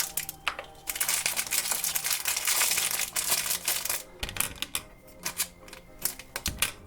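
A crinkly foil blind bag being handled and torn open by hand: a few seconds of dense crackling, then lighter crinkles with a couple of soft thumps.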